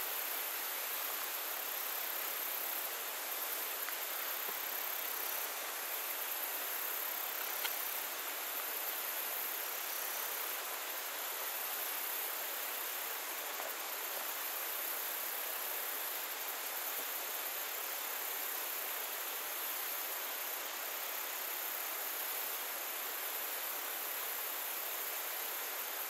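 Steady outdoor ambience: an even hiss with a thin, high insect buzz above it, unchanging throughout.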